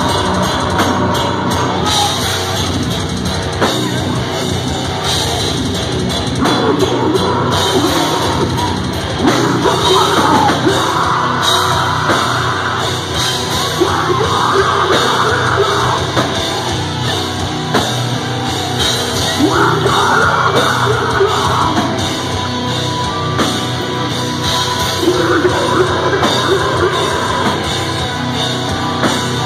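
Deathcore band playing live through a club PA: heavy distorted guitars and drum kit, with harsh vocals coming in and out, heard from within the crowd.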